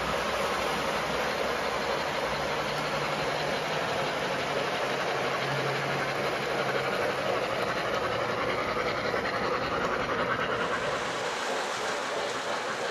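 O-gauge model steam locomotives pulling passenger cars on the layout's track: a steady rolling rumble and clatter of metal wheels on rail, with a hiss. The sound changes a little over ten seconds in.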